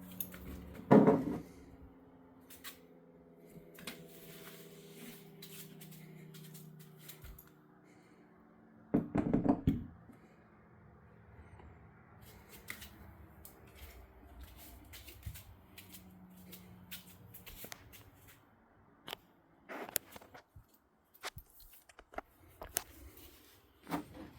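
Faint pitched hum of a small mechanical siren coasting down, sinking slowly in pitch and dying away about halfway through, with four loud knocks and small clicks of handling.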